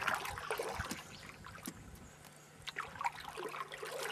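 A paddle dipping and pulling through calm water beside a small boat, with small splashes and water dripping and trickling off the blade, loudest in the first second and again near the end. A faint steady low hum sits underneath from about two seconds in.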